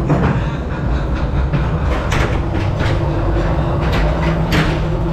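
Ghost train car rolling along its track with a steady low rumble, broken by a few sharp knocks and clatters, the loudest about four and a half seconds in.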